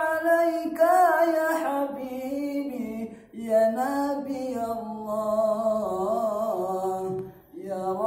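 A man singing an Islamic sholawat unaccompanied, drawing out long wavering notes. The voice breaks off briefly for a breath about three seconds in and again near the end, then carries on.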